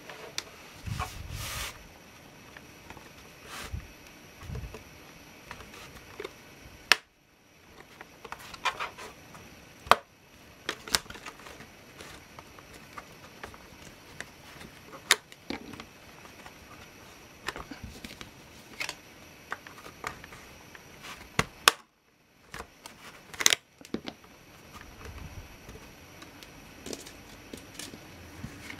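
Scattered clicks, taps and light rattles of a laptop's small plastic and metal parts being handled and worked with tools, with a few sharper snaps.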